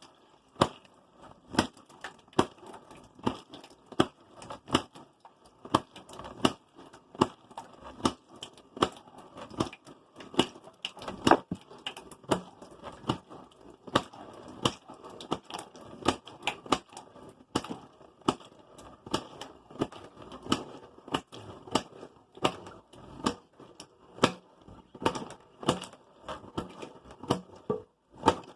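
A long run of sharp crunching cracks, irregular, about one or two a second, with smaller clicks between them.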